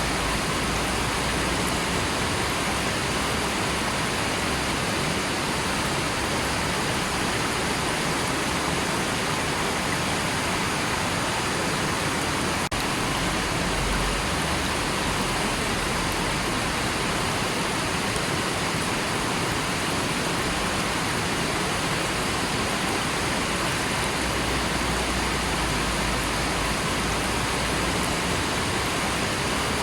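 River water rushing steadily, an even, unbroken noise of flowing water, with a momentary dip about thirteen seconds in.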